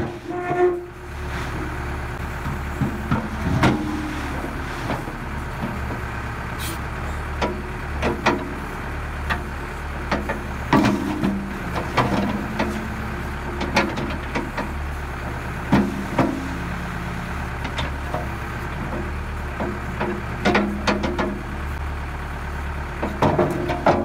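Diesel engine of a New Holland LB75B backhoe loader running steadily while the hydraulics work the dipper arm, with repeated sharp metal clanks as the arm and buckets knock together.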